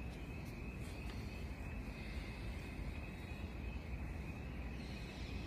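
Steady low background rumble with a thin, steady high whine over it, and a few faint light clicks in the first second or so.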